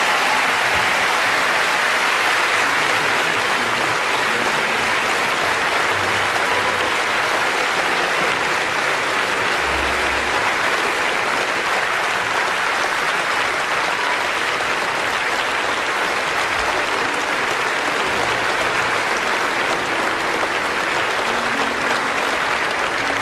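Steady, hissing rush of noise.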